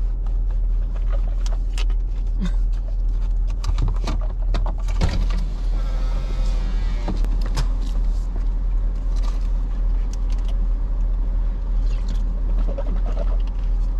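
Steady low rumble of a car's idling engine heard inside the cabin, with scattered small clicks of handling. About six seconds in, a drink is slurped through a straw for a couple of seconds.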